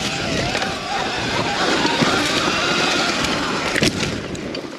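Sur-Ron Light Bee X electric dirt bike ridden along a dirt singletrack: the motor's whine rising and falling with the throttle over chain and tyre noise. A sharp knock a little under four seconds in.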